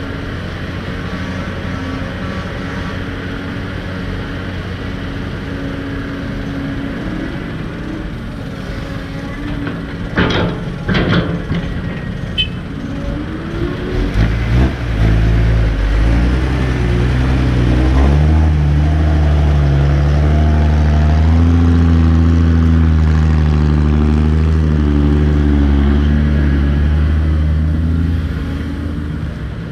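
Heavy diesel truck engine idling, then two sharp knocks. It revs up and runs hard and loud for about ten seconds before easing off near the end.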